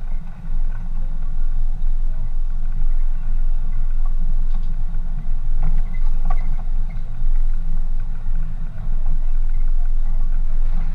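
Pickup truck driving along a dirt track: a steady low engine and road rumble, heard through a camera mounted on the hood, with a few faint clicks midway.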